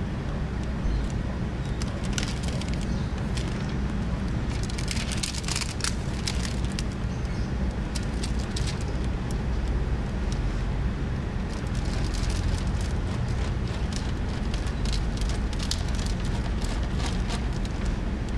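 Window tint film crinkling and crackling as it is handled and unrolled, in two spells of sharp crackles over a steady low rumble.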